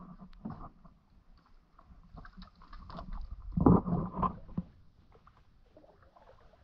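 Canoe pushing through overhanging brush: branches and twigs scraping and rustling against the boat and camera, with hollow knocks from paddle and hull. The loudest cluster of knocks and scrapes comes a little past halfway, then it quiets down.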